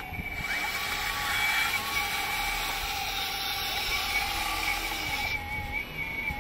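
The hydraulic pump of a 1/14-scale, full-metal CAT 330F RC excavator whines steadily, dipping slightly in pitch as the boom and bucket move under load. A loud hiss of oil through the valves starts about half a second in and cuts off sharply near the end.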